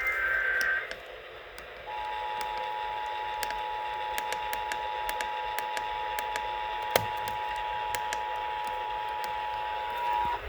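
The tail of an Emergency Alert System data header, a short harsh digital screech, then about two seconds in the two-tone EAS attention signal (853 and 960 Hz sounded together) held steady for about eight seconds, cutting off just before the end. Sharp clicks of static pop over the broadcast hiss, one louder crack about seven seconds in.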